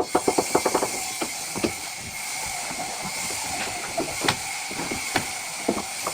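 A steady hiss that starts suddenly, with a quick run of clicks in the first second and scattered knocks after.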